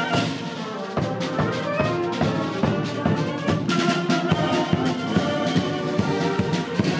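Military band playing a march: brass and bugles sounding held notes over a steady beat of marching drums.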